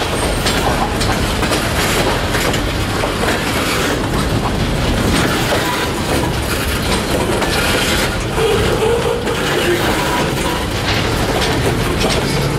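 Freight train cars, bulkhead flatcars and tank cars, rolling past with steady running noise and repeated clacks of wheels over rail joints.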